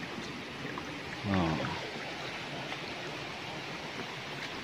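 Shallow rocky stream flowing, a steady rushing of water. About a second in, a short voiced sound from a person breaks in briefly.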